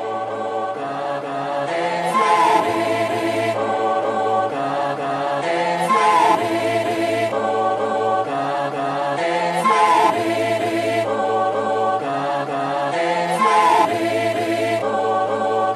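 Background music: sustained choir-like vocal pads with a low bass line, the chord changing about every two seconds and a short melodic figure repeating every few seconds.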